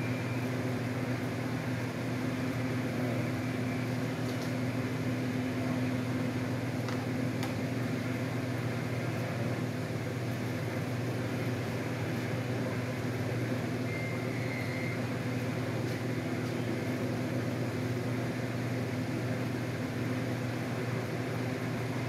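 A steady low machine hum, with a few faint clicks.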